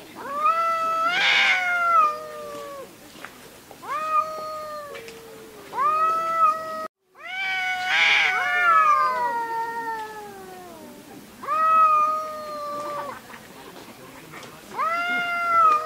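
Domestic cat yowling: about six long, drawn-out meows, each a second or more, several falling in pitch. The two loudest, about a second in and about eight seconds in, are raspy.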